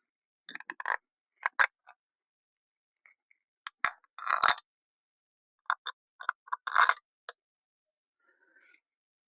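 Bolts and hand tools being handled on the engine: short bunches of sharp metallic clicks and scrapes with quiet gaps between. The clusters come about half a second in, around one and a half seconds, near four and a half seconds and near seven seconds, with a faint one near the end.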